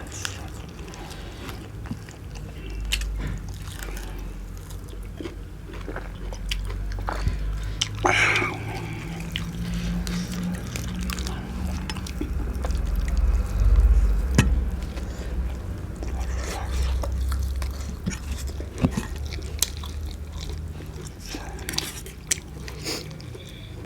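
Close-miked chewing and biting on roast chicken, with many small sharp crunches and clicks of meat and bone being eaten.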